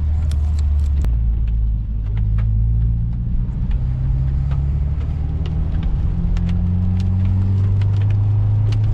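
Turbocharged flat-four engine of a Subaru WRX pulling while driving, heard from inside the car, its note rising steadily over the second half, with scattered sharp ticks throughout. The engine is still misfiring on cylinder 3 despite a new plug and coil.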